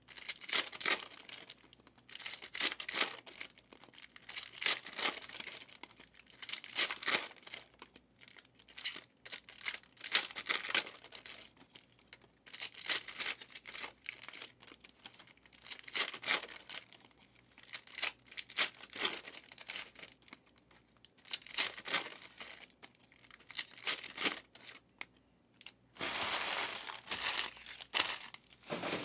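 Plastic trading-card pack wrappers being torn open and crinkled by hand, in short bursts every second or two, with a longer stretch of crinkling near the end.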